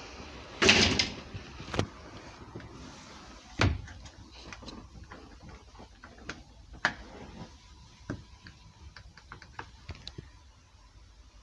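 Knocks and clunks from a bus's driver's cab door and fittings being handled, with a short loud rush of noise about a second in. A faint steady tone comes in about halfway.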